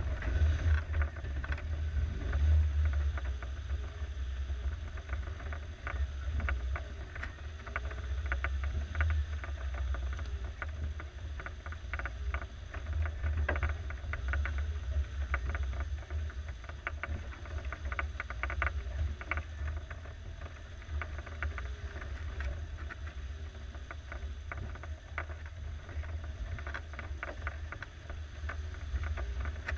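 1987 Suzuki SJ413's four-cylinder engine running as it drives over rough off-road ground: a steady low rumble with frequent clatter and knocks throughout.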